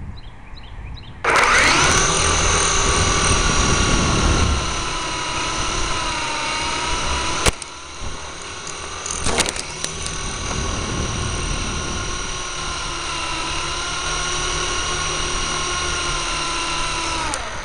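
Electric motors and rotors of a Syma S022 Chinook R/C helicopter, heard from a recorder mounted on the helicopter. They spin up abruptly about a second in and run with a loud, steady whine that drifts slightly in pitch with the throttle. A sharp knock comes about halfway through, a brief clatter a couple of seconds later, and the motors cut back near the end.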